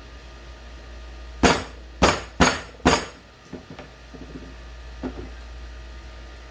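Four sharp metal blows about half a second apart, a hammer striking a steel deep-well socket setup to drive a metal sleeve out of a rubber shifter bushing, each blow ringing briefly. A few faint clicks follow.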